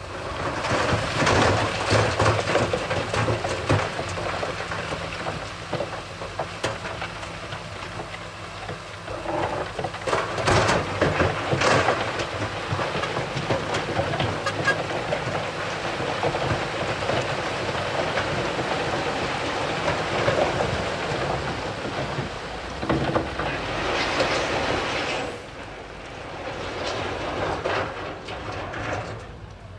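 Heavy diesel earthmoving machinery working stone: a low engine drone under a continuous clatter and crunch of rocks, with louder cracks in places.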